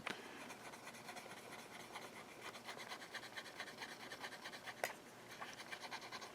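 Faint, rapid scratching of a tool working at a small circuit board, with a sharp click at the start and another about five seconds in.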